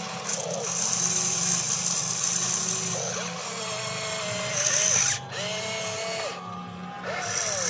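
Radio-controlled model excavator's electric motors whining as the boom digs and the upper body swings round. The pitch glides up as each movement starts and drops as it stops, several times over a steady low hum.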